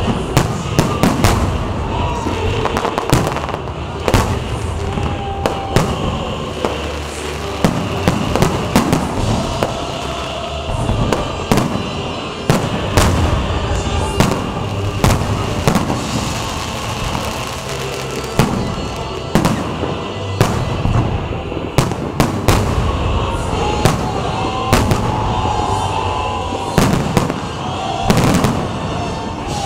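Aerial fireworks shells bursting in quick succession, a dense, continuous run of sharp bangs.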